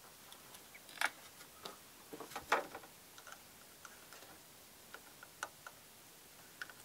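Irregular small clicks and taps of hand tools and parts being handled on a printed circuit board, the loudest about a second in and a cluster around two and a half seconds in.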